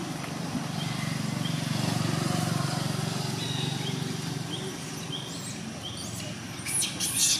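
A steady low engine hum that swells slightly about two seconds in and then eases, with faint short high chirps repeating over it and a brief crackling burst near the end.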